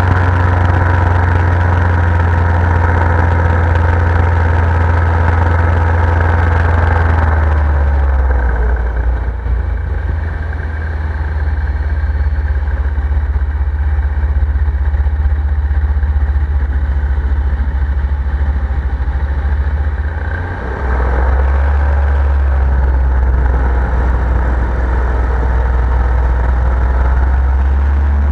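Paramotor engine and propeller running in flight. It is throttled back about eight seconds in, then opened up again around twenty seconds in, with the pitch dipping and rising back.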